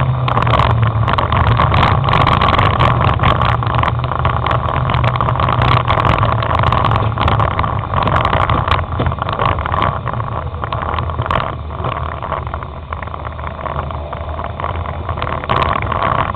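Dirt-track race car's engine running hard, heard from inside the cabin, with many short knocks and rattles throughout. It eases off a little past the middle and picks up again near the end.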